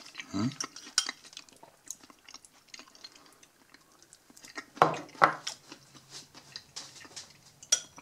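Close-up chewing of sauerkraut in barbecue sauce: soft, wet mouth clicks and smacks, with a couple of louder ones about five seconds in.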